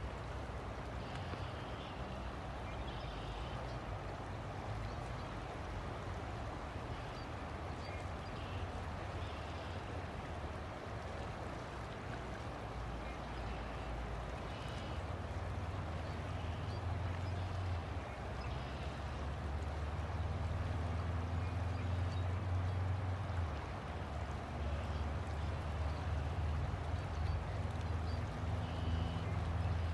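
River water flowing steadily, with a low rumble underneath that grows louder in the second half.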